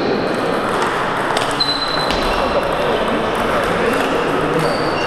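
Celluloid-type table tennis balls clicking off bats and tables, several games going at once, with sharp ticks and short pings over a steady murmur of voices in a large hall.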